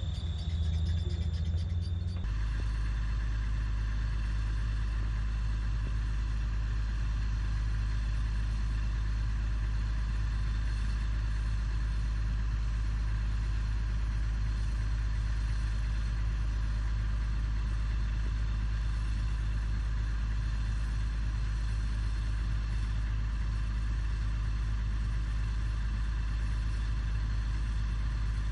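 Heavy diesel engine running steadily with a deep, unchanging drone. It cuts in abruptly about two seconds in, replacing a brief higher-pitched background with a thin steady tone.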